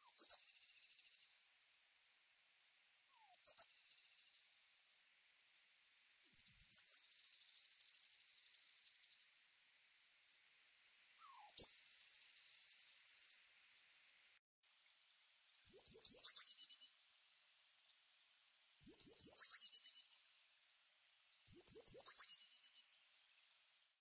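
Blue tit singing: seven separate song phrases, each opening with one or two high, thin notes that drop into a lower, rapid trill.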